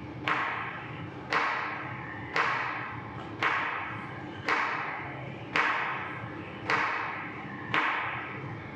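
Wooden stick knocked down against the floor in a steady rhythm, eight knocks about one a second, each with a short ringing tail. It is a light wrist-strengthening exercise that works the wrist in both directions.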